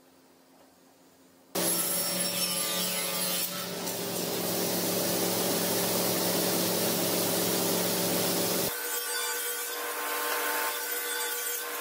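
Table saw starting up abruptly about a second and a half in, running and cutting wood. Near the end the sound changes suddenly to a thinner, higher run with no low hum.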